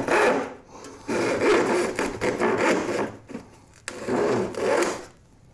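Crosscut hand saw cutting across a wooden board, stroke after stroke, in three spells with two short breaks. The sawing stops about five seconds in.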